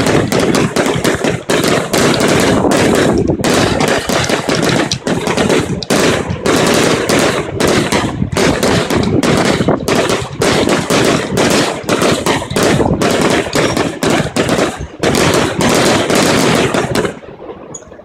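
Ground firework fountain going off with a fast, continuous string of crackling bangs, cutting off about a second before the end.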